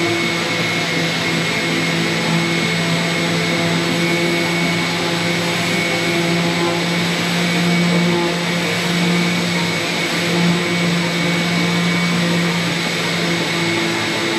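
A small electric motor running steadily with a constant whir and hum.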